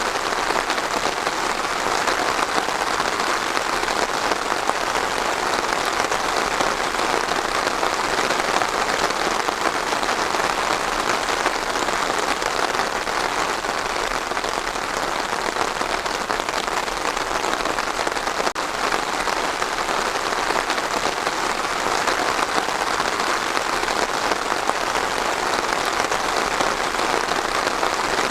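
Steady rain falling, an even hiss of drops that holds level throughout.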